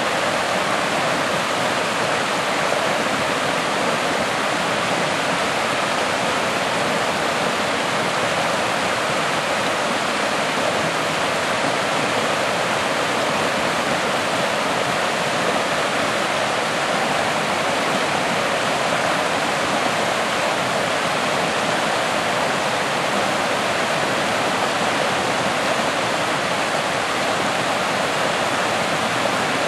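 Swift, rain-swollen stream rushing and splashing over granite boulders: a steady, loud rush of white water.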